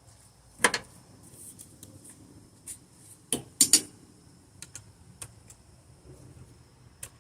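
Metal hand tools clinking and knocking against each other and the engine: a sharp knock about a second in, a quick cluster of louder clinks midway, and light ticks between, as sockets and an extension are handled to reach the spark plugs.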